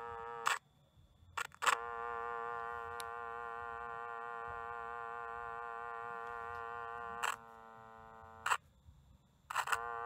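A steady electronic buzz tone of fixed pitch from a Sony TCS-300 Pressman cassette recorder, cutting off and back on several times, each time with a sharp click. Near the end it drops quieter for about a second before stopping, then starts again.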